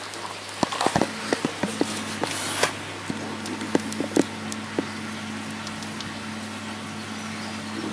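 Scattered, irregular clicks and knocks of handling and movement over a steady low hum.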